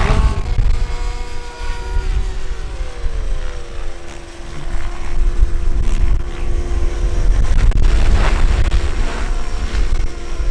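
Radio-controlled model helicopters flying, a steady engine and rotor whine that shifts in pitch about three seconds in and grows louder in the second half.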